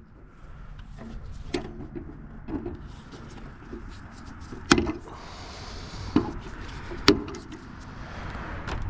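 Scattered sharp clicks and knocks, about six over the stretch, with the loudest two near the middle: tools and metal parts being handled while wiring is cut out of a scrapped air conditioner.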